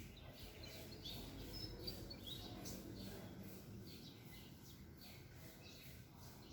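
Small birds chirping and tweeting faintly in short, scattered calls, busiest in the first few seconds, over a steady low background rumble.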